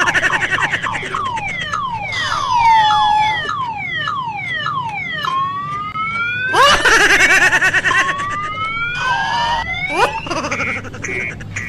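Electronic car alarm siren cycling through its tone patterns: falling wails, runs of fast falling chirps and long rising sweeps, loudest around the middle, then switching to quick even beeps near the end.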